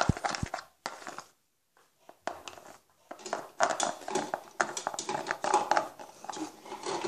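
Hands squishing and kneading sticky homemade glue slime: a run of irregular wet clicks and squelches, broken by two short silent gaps in the first three seconds.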